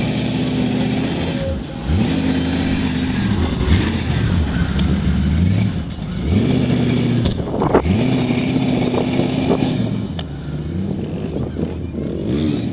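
Lifted Chevrolet square-body truck on large mud tires, its engine revved hard about four times, each rev climbing, held for a second or so, then dropping back, as the tires spin in loose dirt while it turns circles.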